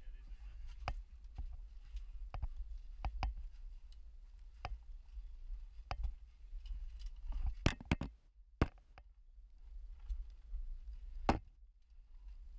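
About a dozen irregular sharp knocks and clicks of hard gear and boots against rock as a caver climbs, loudest in a quick cluster past halfway and once near the end, over a steady low rumble.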